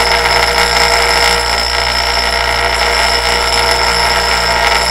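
A steel Sportster/Buell cam lobe ground against a bench grinder's stone wheel: a loud, steady, high-pitched grinding over the grinder's motor. The back of the lobe is being chamfered so that it clears the lifter boss.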